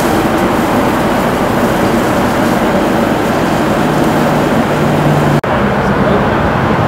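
Fire engine running to pump water to a hose line: a loud, steady rumble with the rush of the water stream. A low hum stands out for a couple of seconds in the middle, and the sound breaks off for an instant about five and a half seconds in, then carries on.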